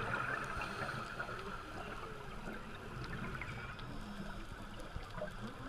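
Muffled underwater ambience picked up through a dive camera's housing: a steady rushing hiss, stronger in the first second or two, with faint scattered clicks and low rumbling.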